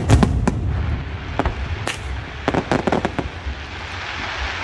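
Aerial fireworks bursting: a run of sharp bangs and pops, with a quick rapid-fire cluster in the middle, then a hiss that swells near the end.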